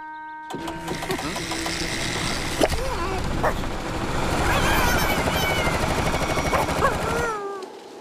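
A loud motorized machine running with a steady rushing whir, with cartoon animal squeals and yelps over it. It starts about half a second in and cuts off abruptly just after seven seconds.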